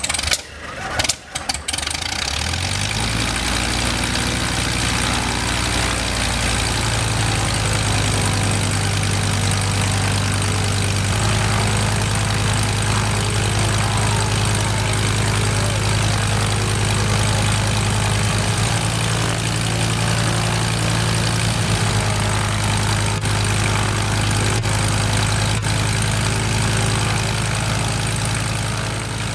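Five-cylinder BMW radial aircraft engine starting with a few sharp coughs in the first second or so, catching and picking up speed by about three seconds in, then running steadily at idle with the propeller turning.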